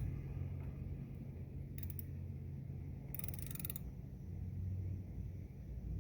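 Hand tools clicking on metal as the new ignition coil is fitted into the engine of a 2009 Toyota Sienna: a couple of quick clicks about two seconds in, then a rapid run of ratchet-like clicks a bit past three seconds, over a steady low hum.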